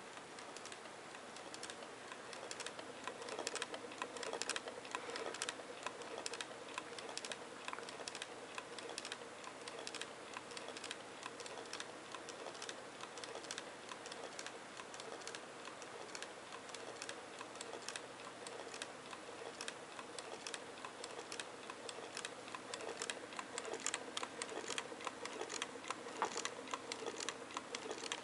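Homemade Pringles-can low-temperature-difference Stirling engine running, its bent-wire crankshaft and linkage clicking and ticking rapidly and unevenly as the flywheel turns.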